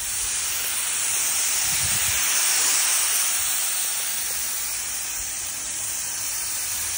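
Pneumatic spray gun spraying primer: a steady hiss of compressed air and atomised paint.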